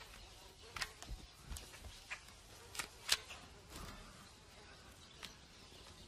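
Faint, irregular sharp clicks and snaps of vultures feeding at a carcass, about seven spread over several seconds.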